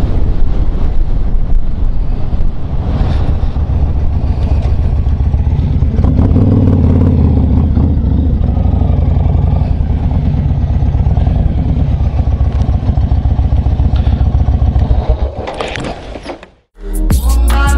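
Yamaha XV1900 Star Raider's big air-cooled V-twin running while the motorcycle is ridden at low speed, with a steady rapid pulsing from the exhaust. The engine sound fades and cuts out about a second before the end, and music begins.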